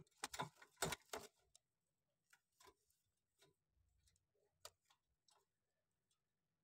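Faint clicks and taps in near silence: a quick cluster of knocks in the first second and a half, then single sharp ticks every half second or so, stopping shortly before the end.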